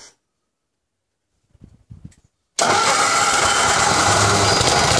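A small gasoline pony motor on a 1950s Koehring crane's Caterpillar diesel fires up suddenly about two and a half seconds in and runs loud and steady. This pony motor is the starting engine used to crank the cold diesel after two years of sitting.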